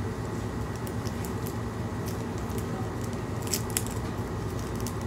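Small packaging wrapper being picked and peeled open by hand: scattered faint crinkles and clicks, the sharpest pair about three and a half seconds in, over a steady low room hum.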